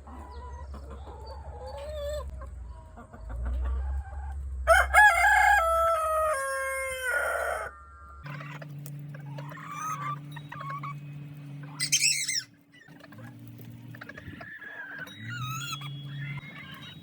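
Chickens clucking, with a rooster crowing once, loud and long, about five seconds in; a sharp high squawk comes near twelve seconds.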